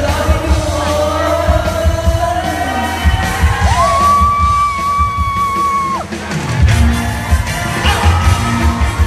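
Live pop music over a concert sound system: a heavy bass beat under a singing voice, with some yells from the crowd. About four seconds in, a long high note is held for about two seconds while the beat thins out, then the beat comes back.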